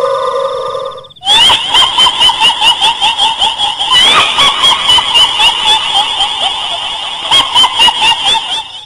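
A high-pitched, warbling, laugh-like chatter in rapid pulses, about four or five a second. It cuts in abruptly about a second in and cuts off just as suddenly near the end, like an inserted sound effect.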